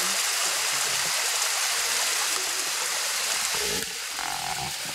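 Small waterfall splashing onto wet rocks: a steady rush of falling water, a little quieter from about four seconds in.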